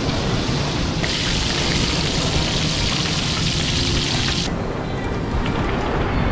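Whole corvina deep-frying in a pan of hot oil: a loud sizzling hiss starts about a second in and cuts off abruptly past the middle. A steady low rumble runs underneath, with a few faint clicks near the end.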